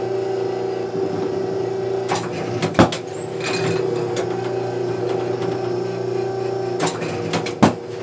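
Automatic oscillating clay target trap machine running with a steady hum, broken twice, about five seconds apart, by a quick run of mechanical clicks ending in a loud clack as it throws a target.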